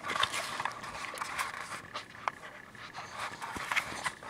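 Camera handling noise: clothing rustling against the microphone, with many small clicks and taps.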